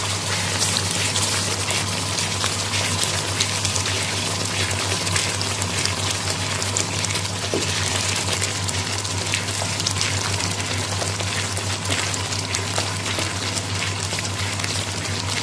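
Milk and paneer mixture boiling hard in a kadhai over high heat, bubbling and crackling steadily as it reduces down toward kalakand burfi. A steady low hum runs underneath.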